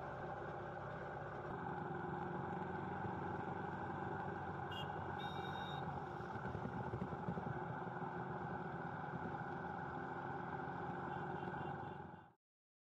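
Steady road traffic and engine noise heard from a vehicle moving along a busy highway among motorcycles and cars, with two short high-pitched tones about five seconds in. The sound cuts off abruptly near the end.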